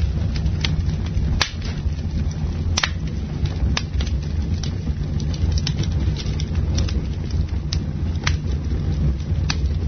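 Campfire burning, with irregular sharp crackles and pops of the wood over a steady low rumble.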